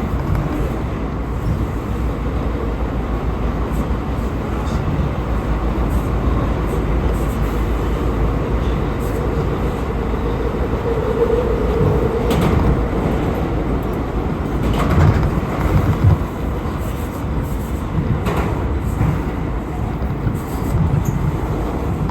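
R179 subway car running at speed, heard from inside: a steady rumble of wheels on rail, with a short tone about halfway through and a few clacks over rail joints in the second half.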